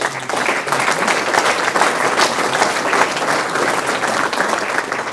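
Audience applauding, a dense steady clapping that begins suddenly and tapers slightly near the end.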